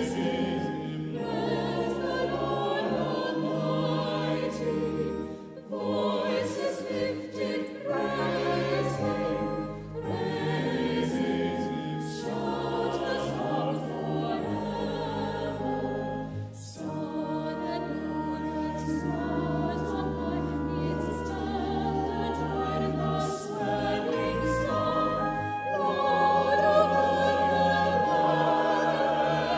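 Church choir singing a sacred anthem with pipe organ accompaniment, the organ holding low sustained bass notes, and a trumpet playing along.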